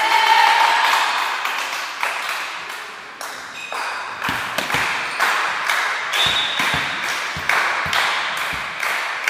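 Players' shouts fade into the echo of a sports hall. Then a volleyball is bounced again and again on the wooden gym floor before a serve: a series of low thuds from about four seconds in.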